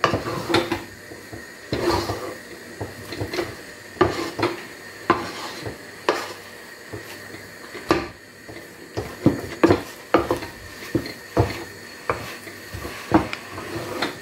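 Wooden spatula stirring and pressing stiff ugali dough in a pot, with irregular knocks and scrapes against the pot's sides and bottom, a stroke or two every second. The maize-flour porridge is being worked as it thickens into a stiff dough.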